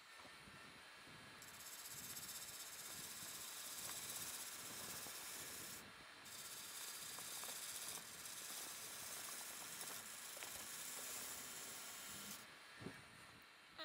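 A turning tool cutting a spinning laminated wood platter on a lathe: a steady hissing shear as shavings peel off. It eases briefly about six seconds in and again near the end.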